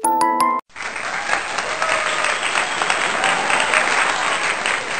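A few bright pitched jingle notes, cut off about half a second in; after a short gap, steady applause follows.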